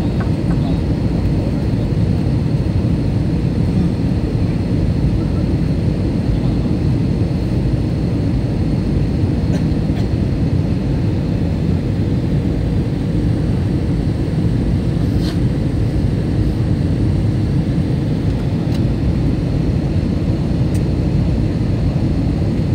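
Airbus A321 cabin noise on final approach: its jet engines and the rushing airflow make a steady, mostly deep noise, with a faint high whine above it and a few soft ticks.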